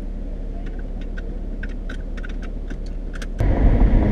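Inside a car: a steady low hum of the stationary car with a run of light clicks. About three and a half seconds in, it cuts abruptly to the much louder low rumble of the car moving on the road.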